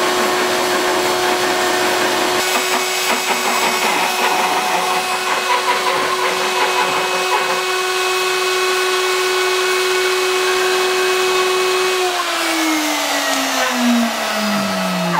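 CNC milling machine's router spindle running with a steady high whine. About three seconds before the end it winds down, the whine falling steadily in pitch as the motor spins down.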